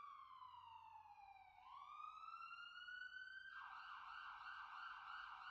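Faint emergency vehicle siren: one long wail sliding down and back up in pitch, then switching to a rapid yelp about three and a half seconds in.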